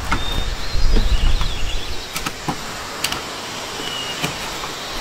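A few sharp knocks and clicks from a hard-shell roof-top tent and its Land Rover Defender being handled, over a low rumble that fades after about two seconds, with faint high chirps.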